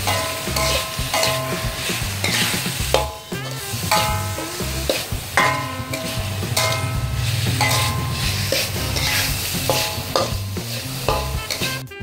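Metal spatula stirring and scraping a frog stir-fry around a metal wok in repeated strokes, with short squeals of metal on metal, while the food sizzles in the pan.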